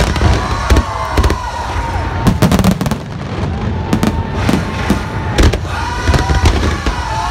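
Fireworks display in a heavy barrage: many loud bangs and crackles in quick, irregular succession over a constant rumbling din, with whistling tones that rise and fall through it.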